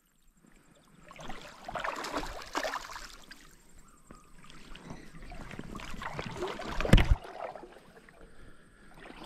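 Shallow creek water splashing and sloshing in irregular spells, with one sharp knock about seven seconds in.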